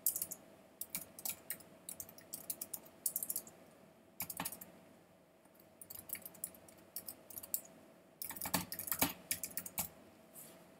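Computer keyboard typing in short bursts of keystrokes with brief pauses, as login details are entered to sign back in to a website.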